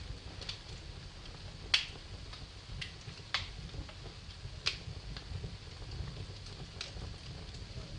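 Wood fire burning in a fireplace, crackling with sharp, irregular pops, the loudest a little under two seconds in, over a low steady rumble of the flames.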